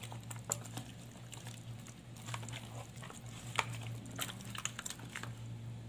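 Raw chicken backbones being rubbed and handled by hand in a plastic tub: scattered wet squelches and small clicks over a steady low hum.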